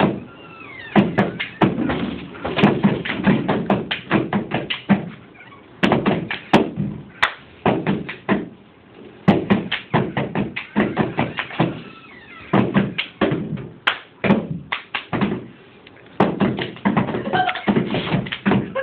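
Two people tapping and slapping a tabletop with their hands in a fast rhythm, the taps coming in quick runs with brief pauses between them.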